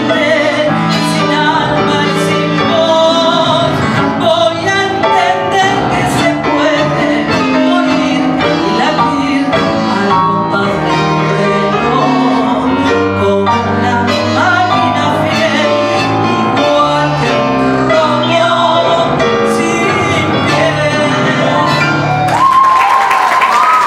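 A woman singing a tango over piano, guitar and bandoneon, closing on a long held note. Audience applause breaks out near the end.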